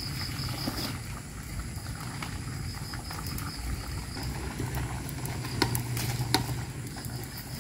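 Wood fire crackling under a steaming wok of stew, with a few sharp crackles over a steady low rumble.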